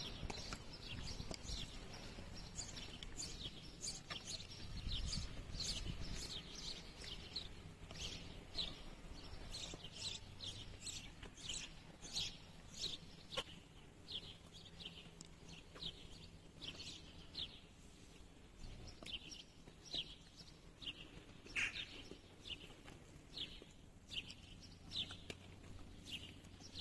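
Small birds chirping: a continual run of short, sharp, downward-sliding chirps, one or two a second, over faint outdoor background.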